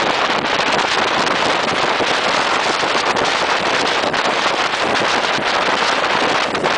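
Running noise of a moving railway carriage heard from an open window, with wind rushing over the microphone. The noise is a steady, loud hiss with no clear beat.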